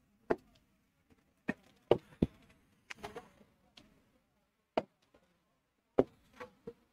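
Light taps and clicks on an interactive smart-board screen as shapes are drawn and toolbar buttons pressed: about a dozen sharp, irregularly spaced taps.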